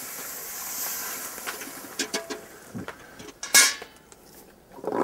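Steam hissing off the hot iron tyre of a wooden cart wheel as it is quenched with water and shrinks onto the wheel, with a few light knocks and clinks and a short, sharp hiss about three and a half seconds in.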